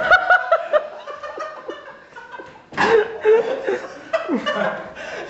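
People laughing hard: a quick run of 'ha-ha' pulses at the start, then a fresh outburst of laughter a little under three seconds in.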